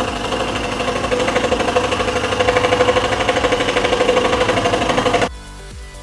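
Einhell TC-SS 405 E electric scroll saw running, its reciprocating blade cutting through plywood with a fast, even chatter. About five seconds in it cuts off suddenly and fainter background music takes over.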